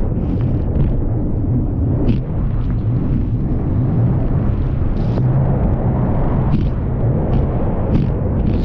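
Personal watercraft engine running at speed, its pitch wavering up and down, under a rush of wind and water noise, with a few short sharp hits as the hull crosses the chop.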